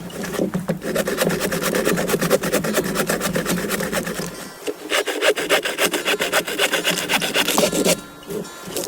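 Hand saw cutting through firewood in rapid, steady back-and-forth strokes. There is a short break about halfway, and the sawing stops near the end.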